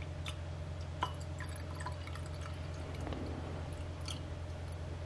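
The last of a bottle of whisky trickling and dripping into a glass, with scattered small drips and light glass ticks over a steady low hum.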